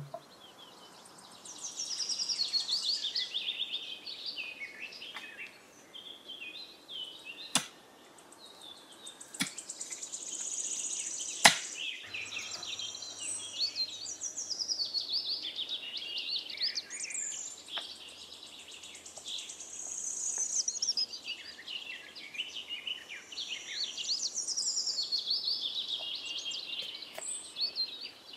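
Songbirds chirping and singing on and off, with three sharp knocks in the first half of the clip.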